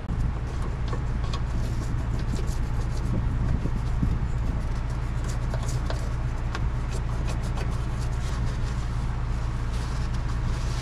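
Steady low hum in the background, with scattered light clicks and taps over it.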